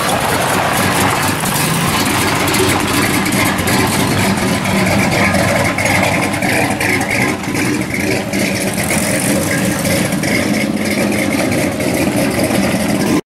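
Classic Plymouth muscle car's engine running loudly as the car idles and then pulls away onto the road.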